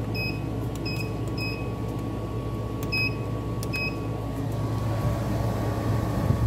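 Five short electronic beeps as the buttons of a plug-in digital thermostat controller are pressed, over the steady hum of a running window air conditioner.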